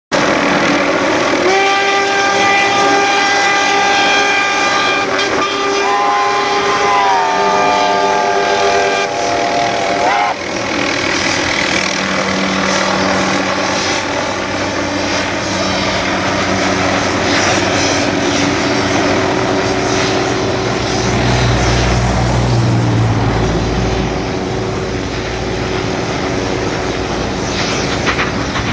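Two NZR L-class steam tank locomotives whistling, then working across a viaduct. One steam whistle sounds a steady chord from about a second and a half in. A second, higher whistle joins at about six seconds and slides lower, and both cut off about ten seconds in. After that comes a steady din of steam exhaust and running noise, with a deep rumble a little past twenty seconds.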